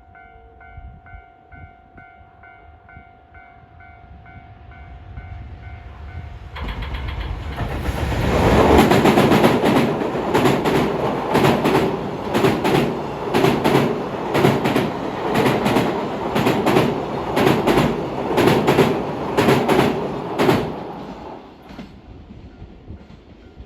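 Train passing close by: its approach builds over several seconds, then the wheels clatter over the rail joints in a regular rhythm for about twelve seconds, and it fades away near the end.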